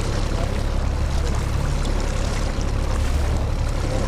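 Small boat's outboard motor running steadily at trolling speed, under a steady rush of wind and water noise.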